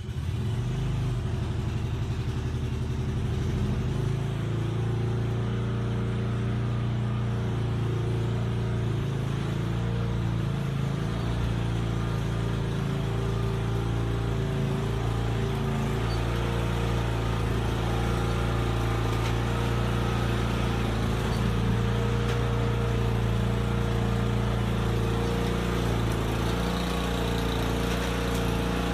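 Lawn mower engine running steadily and loudly, cutting in suddenly at the start.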